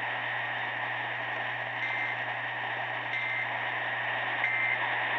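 Three short data bursts of an EAS end-of-message signal from a NOAA Weather Radio broadcast, about a second apart, marking the close of the warning. They sound over steady radio hiss and a low hum.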